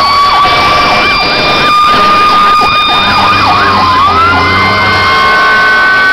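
Emergency vehicle sirens sounding together as fire trucks and an ambulance pass close by. A steady high siren tone runs under a fast yelping siren. About four seconds in, the steady tone dips, then rises to a higher pitch as the yelping stops.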